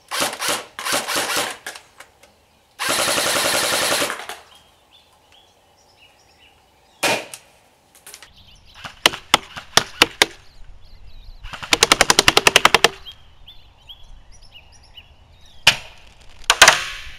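Aim Top G36C electric airsoft rifle firing: single semi-automatic shots and short full-auto bursts at about fifteen shots a second, which its owner calls a slow rate of fire. About three seconds in there is one longer, continuous blast.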